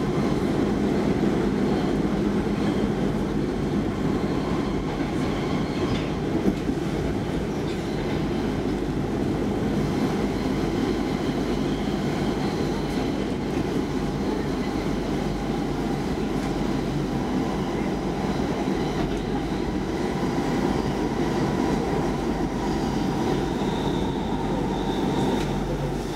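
Stockholm metro C14 car running steadily through a tunnel, heard from inside the car: a constant, even noise of wheels on rail and running gear, with a faint high whine near the end.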